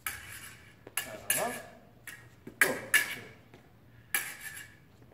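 Fencing blades clashing, metal on metal: about seven sharp, ringing clinks at uneven intervals as blade meets blade in parries and attacks.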